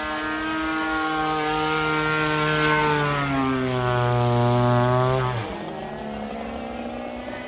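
Radio-controlled model airplane's propeller engine running in flight overhead. Its note slides down in pitch as the plane passes, then falls away sharply about five and a half seconds in, leaving a quieter, lower drone.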